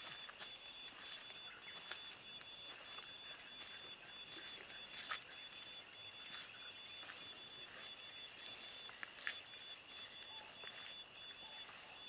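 A steady high-pitched insect chorus with an even, rapid pulsing, and a few faint ticks scattered through it.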